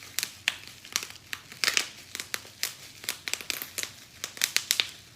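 Crinkly snack-crate packaging being handled and unwrapped: a run of sharp, irregular crackles and rustles.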